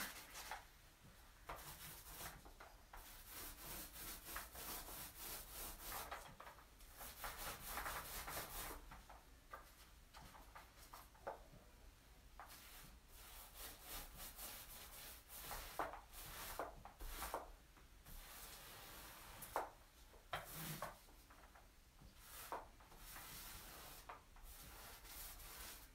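Mini paint roller rolled back and forth over a countertop, spreading a textured stone-fleck coating, making a faint rubbing sound in repeated strokes, with a few light clicks and knocks between them.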